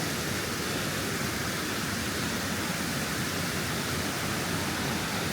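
Steady rushing of falling water from a mountain waterfall, an even roar with no breaks.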